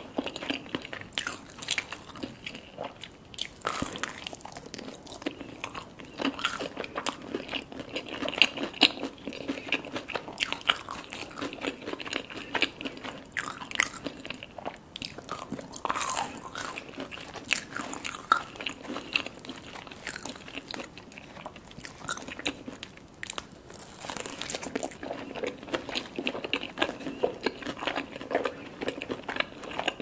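Close-up eating sounds: a person biting and chewing a breaded fried mozzarella stick and cheesy pan pizza, with crunching and many irregular crisp mouth clicks.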